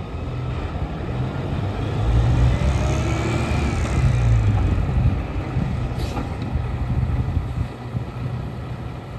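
Kenworth T880 day-cab tractor's diesel engine running as the bare tractor drives slowly past on gravel. The rumble grows louder from about two seconds in, then eases as the truck moves on. A faint whistle rises and falls about three seconds in.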